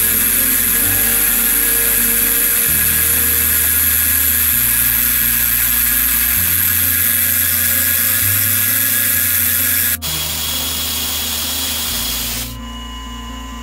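Milling machine end mill cutting a slot in a metal pin on a rotary table: a loud, steady, high-pitched cutting noise. About ten seconds in the sound breaks sharply, and near the end the cutting noise drops away, leaving a quieter steady hum.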